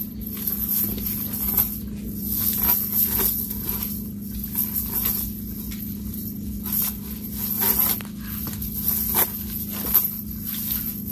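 Cast net being lifted and shaken out on a wet tiled floor: the nylon mesh rustles and scrapes, and the chain weights along its rim drag on the tiles, in irregular strokes over a steady low hum.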